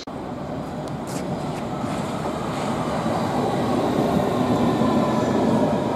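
London Underground S8 Stock electric train moving along the platform. Its running noise grows steadily louder, with a faint whine above it.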